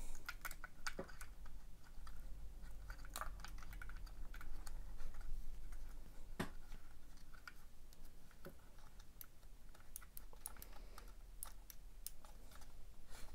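Irregular small clicks and taps of hard plastic and wires being handled as a small switch and its leads are pressed into the plastic housing of a Makita DUC356 cordless chainsaw, with a sharper click about three seconds in and another about six and a half seconds in.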